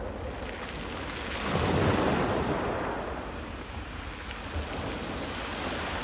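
Rough sea surf on a stony shore: a wave surges in about a second and a half in and then falls away, with wind buffeting the microphone.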